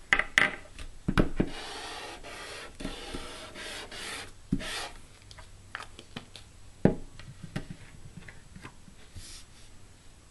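Glue stick rubbed in scratchy strokes across cardstock, with a few sharp clicks and taps in between, the loudest about seven seconds in.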